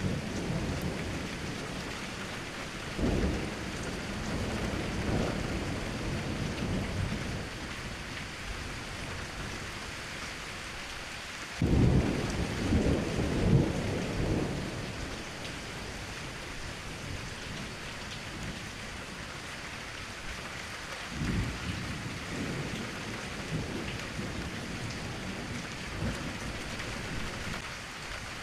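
Steady rain with thunder rumbling three times: once about three seconds in, a louder one starting suddenly about twelve seconds in and rolling on for a few seconds, and a weaker one about twenty-one seconds in.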